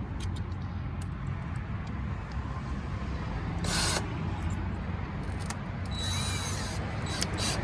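Power drill boring a hole with a larger bit, enlarging a pilot hole in a car's fender or bumper; it runs steadily, with a brief higher whine about six seconds in.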